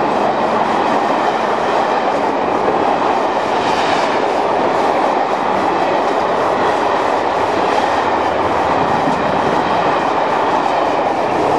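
Express passenger coaches rushing past at speed, their wheels running on the rails in a loud, steady rush.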